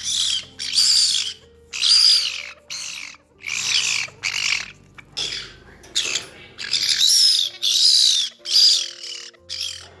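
White-bellied caique parrot giving a rapid run of short, harsh screeching squawks, more than a dozen of them. This is its angry call, made when disturbed, when other birds try to take its food, or when strangers try to touch it. Soft music plays underneath.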